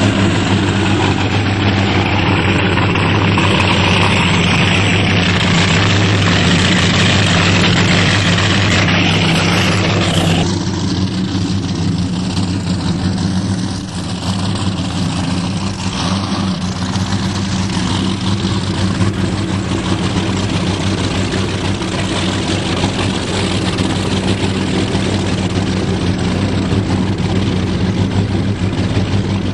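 Supercharged engine of an Outerlimits performance powerboat idling with a deep, steady drone. About ten seconds in, the higher hiss above the drone drops off while the low engine note carries on.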